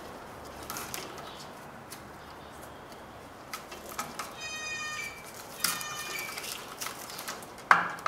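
Rustling, scraping and clicking of Romex cable as its sheathing is stripped and the wires are handled. Two short high-pitched squeaks come about halfway through.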